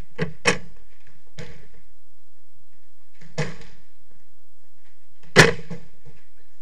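Football being kicked around a jorkyball court, striking feet and the court walls: five sharp thuds, the loudest about five seconds in.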